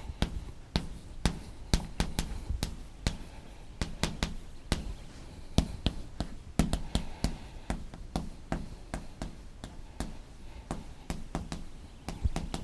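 Chalk tapping and clicking against a blackboard as words are written: an irregular run of sharp clicks, about three a second.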